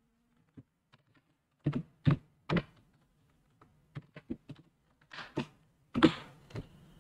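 Computer keyboard keystrokes while code is being edited: separate key clicks, a quicker run in the middle, and a louder keystroke about six seconds in.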